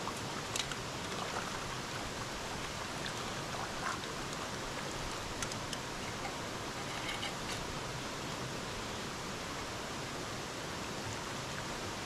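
Steady rush of a shallow stream, with occasional small splashes and light knocks as a camping pot, fork and tin can are rinsed in the water.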